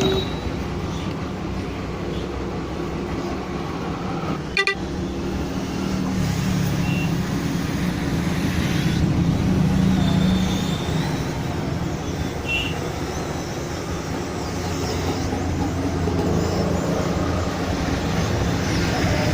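Hot air rework station blowing steadily on a phone motherboard, desoldering the charging connector. A single sharp click comes about four and a half seconds in.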